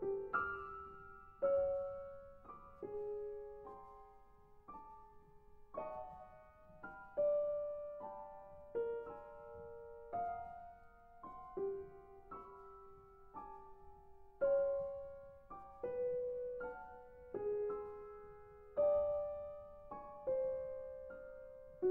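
Solo piano playing contemporary classical music: sparse chords struck about once a second, each left to ring and fade before the next, in the middle and upper register.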